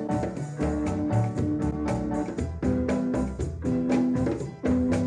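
Background music with a steady beat: sustained keyboard chords over bass and drums.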